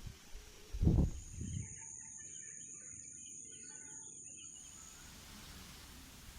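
A low thump about a second in, then birds chirping over a steady high-pitched buzz for a few seconds.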